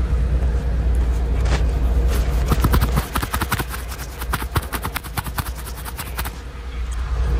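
Steady low rumble of a commuter train, with a quick run of clicks and taps for about four seconds starting around two and a half seconds in.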